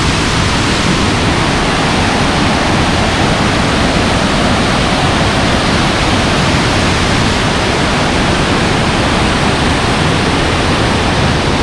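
Waterfall: loud, steady rush of falling water.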